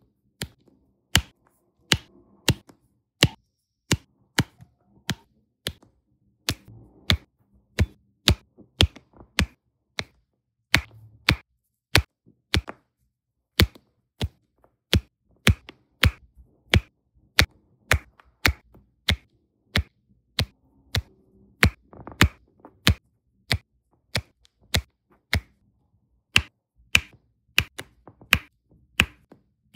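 Sharp, crisp clicks, about two a second, as a plastic multi-placer pen taps rows of resin diamond-painting drills down onto the sticky canvas.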